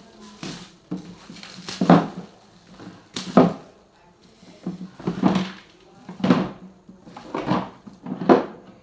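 Cardboard packaging being torn open by hand without scissors: a series of about six sharp ripping and rustling bursts, roughly one a second.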